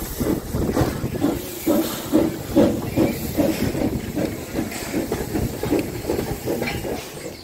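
Steam locomotive chuffing, its exhaust beats coming about two to three a second over a steady hiss of steam.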